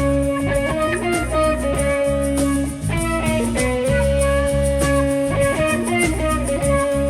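Live band music without vocals, led by guitar, with notes held over a steady bass and a rhythmic pattern.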